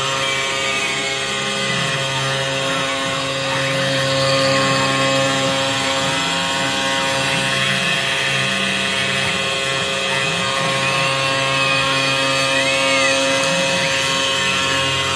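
Super5 desktop 5-axis CNC milling machine running: a steady machine whine, with stepper-motor tones gliding up and down in pitch as the axes move.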